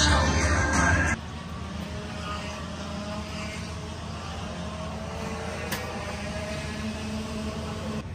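Background music that cuts off about a second in, followed by a steady drone of distant kart engines running, with a low hum underneath and faint wavering engine tones.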